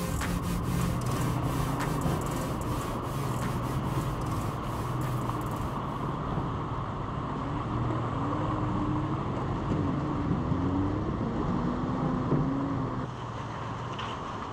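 A truck crawling along a rocky dirt trail: its engine runs at low speed, rising and falling a little, while the tyres crunch over gravel and stones, with many small clicks in the first half.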